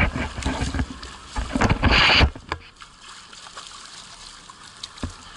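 Water sloshing and splashing against a small fishing boat, with a short loud splash about two seconds in, then quieter lapping with a few knocks.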